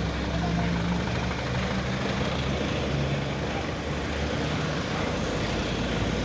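Heavy diesel engine running steadily, a constant low drone under a dense mechanical noise.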